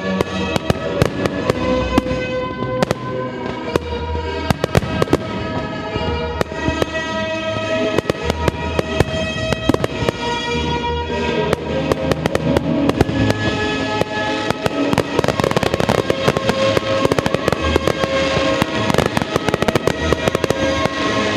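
Aerial fireworks shells bursting in quick succession, with many sharp bangs and crackles that come thicker in the second half, over music with sustained notes.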